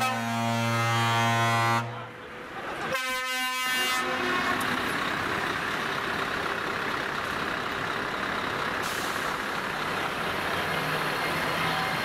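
Truck air horn sounding steadily for about two seconds, then a second short horn blast about three seconds in. After that comes a steady rumble of heavy trucks driving past.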